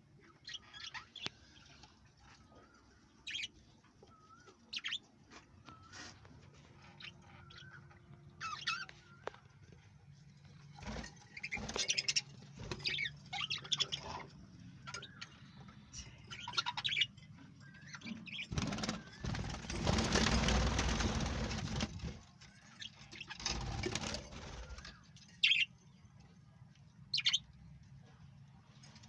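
Small parrots chirping in short, scattered calls, with a few seconds of noisy wing flapping about two-thirds of the way in.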